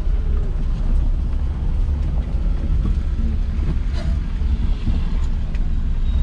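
Steady low rumble of a small car driving, heard from inside the cabin, with wind buffeting the microphone; a single light click about four seconds in.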